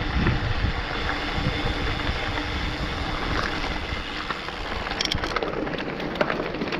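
Mountain bike rolling fast over a dirt and gravel trail: a steady rush of wind and tyre noise, with a patter of sharp clicks and rattles from loose gravel and the bike from about five seconds in.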